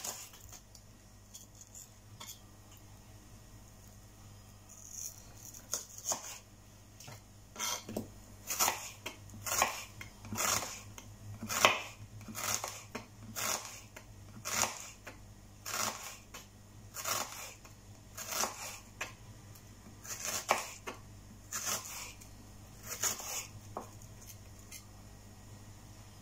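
Kitchen knife slicing shallots on a wooden cutting board: a regular series of sharp knife taps on the board, about one or two a second, starting a few seconds in.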